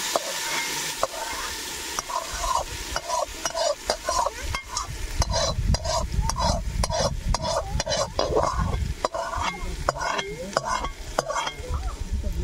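Shrimp masala sizzling as it hits hot ghee in a metal cooking pot, then a spatula scraping and clanking against the pot in quick, irregular strokes as the masala is pushed off and spread.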